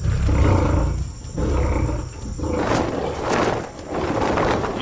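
Tigers roaring: two long, low roars in the first half, then a rougher, noisier stretch of roaring through the second half.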